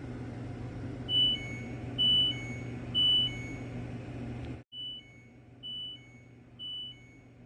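LG Dios dishwasher beeping over a steady low hum of the machine: three two-note electronic beeps about a second apart, a high note then a lower one, then after a brief break three more, fainter.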